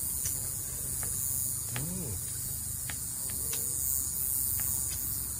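Steady high-pitched chorus of crickets and other insects, with scattered faint clicks and a brief low tone that rises and falls about two seconds in.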